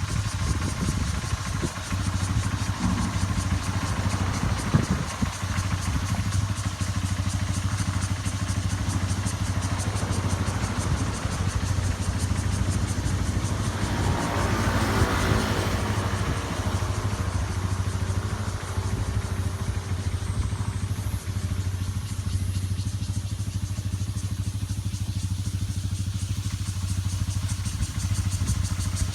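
An engine running steadily, with insects calling over it. About halfway through, a louder swell rises and fades.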